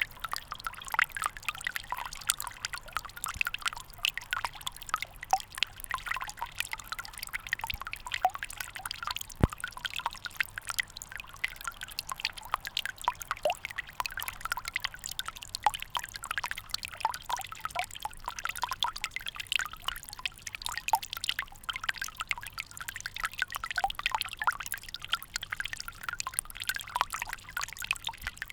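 Water dripping fast and irregularly, many drops a second landing with small plinks and splashes, blending into a trickle.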